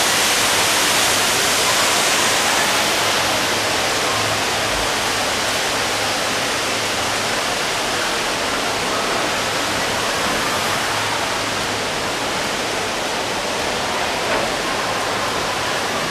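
Steady rush of falling water from a large indoor waterfall, a constant even hiss that eases a little after the first few seconds.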